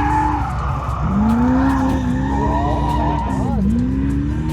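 A car engine revving hard on a track run, its pitch climbing sharply about a second in and dipping briefly then rising again near the end, with tyres squealing and skidding.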